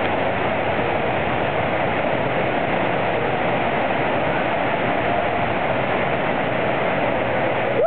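Steady, loud rush of pumped water sheeting over an artificial surf ride's padded surface.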